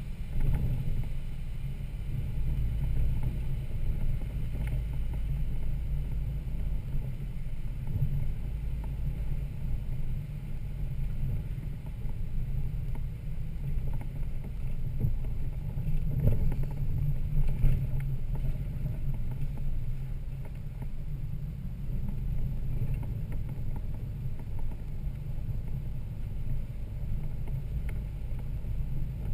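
Toyota Land Cruiser FZJ80's straight-six engine running low and steady as the truck crawls a trail, with a few scattered knocks and clunks over the rough ground.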